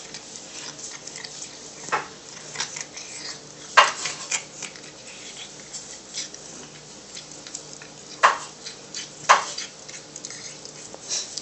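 Cat gnawing and chewing meat off a turkey bone: irregular clicks and crunches of teeth on bone and meat, with a handful of sharper, louder clicks among the softer ones.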